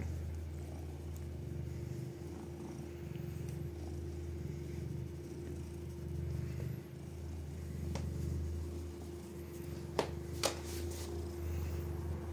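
Black-and-white domestic cat purring steadily while being stroked by hand, the purr swelling and fading in slow cycles. Two short sharp clicks about ten seconds in.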